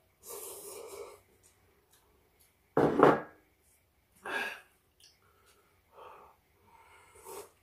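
Slurping noodles and broth from a bowl: a run of short, wet slurps and sucking breaths, the loudest about three seconds in.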